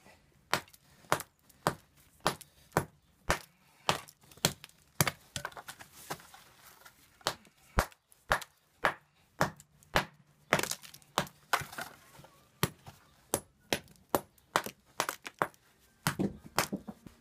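Mason's hammer striking a red sandstone block in sharp, repeated blows about twice a second, a little faster near the end, chipping off bits to shape the stone.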